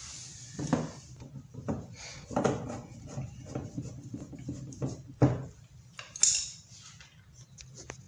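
A screwdriver working screws into a washing machine's plastic rear cover panel as it is refitted: a string of irregular light clicks, taps and knocks, the loudest about five and six seconds in.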